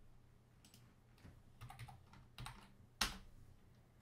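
Computer keyboard keys pressed several times, short faint clicks with the last and loudest one about three seconds in, over a faint steady low hum.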